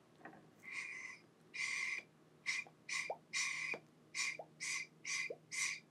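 Air drawn in puffs through an unlit handmade briar pipe with a white acrylic stem, a dry draw test: a quick series of airy hisses, some short and some longer. The draw sounds open and free.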